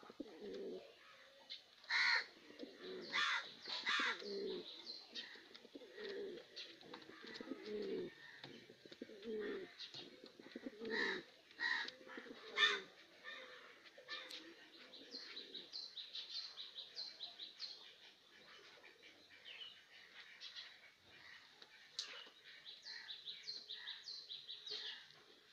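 White fantail pigeons cooing over and over, each coo a low call that drops in pitch, through the first half. Sharper high bird chirps cut in now and then, and near the end a quick run of short high chirps takes over.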